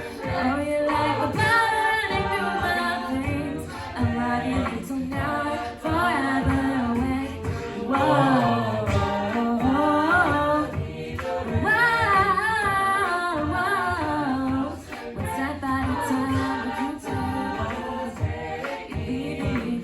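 A mixed-voice a cappella group singing a pop song, with a melody line over sustained backing harmonies and a low bass part, all voices and no instruments.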